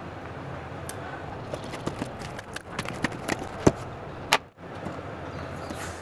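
A cardboard home-theater carton being handled and opened: a run of scattered clicks and knocks, with a few sharper ones about three and a half to four and a half seconds in, over a steady low hiss.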